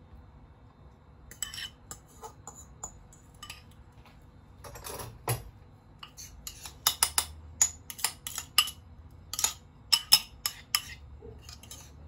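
Cutlery clinking and scraping against a ceramic plate while mashed avocado is dolloped and spread onto toast. There are a few light clicks at first, then a quick run of sharp taps in the second half.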